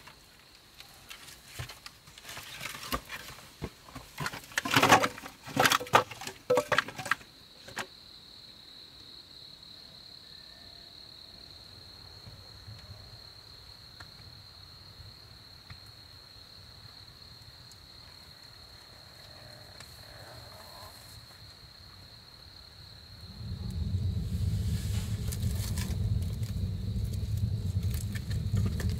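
A run of sharp knocks and clicks, then a steady high-pitched insect drone held on one tone for about fifteen seconds. Near the end a loud, steady low rumbling noise comes in and covers it.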